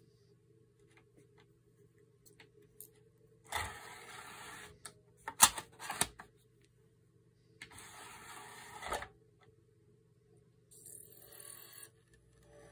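Denon CD receiver's disc tray motor whirring open, two sharp clicks as a CD is dropped onto the tray, then the tray whirring shut and the disc mechanism briefly spinning up to read the disc, over a faint steady hum.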